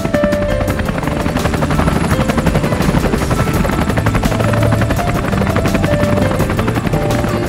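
Helicopter rotor chop, a fast steady beating, as the helicopter lifts off the tarmac.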